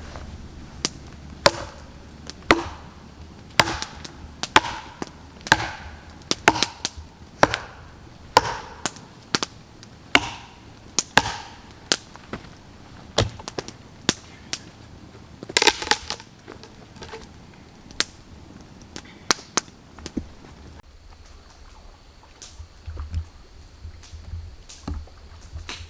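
Wood being chopped with a hatchet or axe: sharp strikes about once a second, stopping about twenty seconds in, followed by a few duller low thumps.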